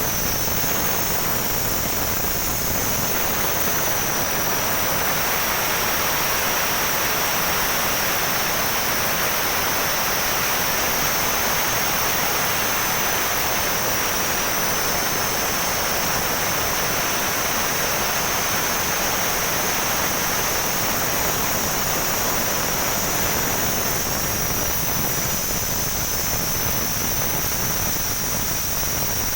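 Compressed gas hissing steadily out of an open cylinder valve as the cylinder, which still holds gas, is emptied before the valve is taken apart.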